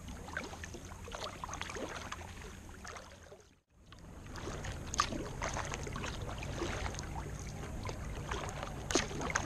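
Kayak paddle strokes on calm sea water: blades dipping and pulling, with drips and small splashes off the paddle. The sound fades out briefly about three and a half seconds in, then the strokes resume over a steady low hum.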